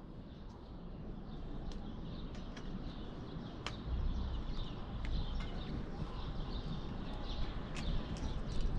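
Scattered short, high bird chirps over a steady low outdoor rumble.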